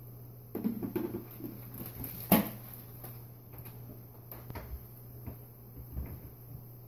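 Small clicks and taps of a kitchen knife slicing hard-boiled eggs held in the hand over a plastic mixing bowl, with one sharper knock a little over two seconds in, over a steady low hum.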